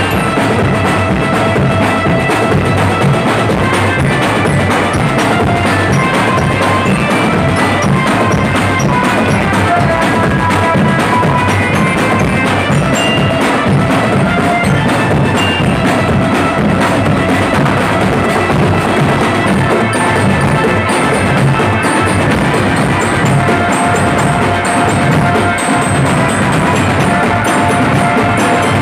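Drum band playing: bass drums and snare drums beating a busy marching rhythm, with a held melody line on top. Loud and steady throughout.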